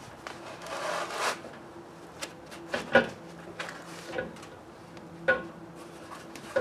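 Foam pool noodle being pressed and worked onto the steel bar of a truck bed extension: a rubbing rush about a second in, then a few short squeaks and knocks spaced out through the rest.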